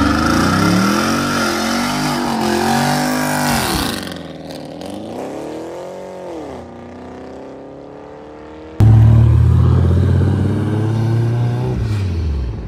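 Car engines being revved. A loud engine's pitch rises and falls, then fades about four seconds in to a quieter engine note that dips and climbs again. A little before nine seconds a loud, low engine note comes in suddenly and falls in pitch near the end.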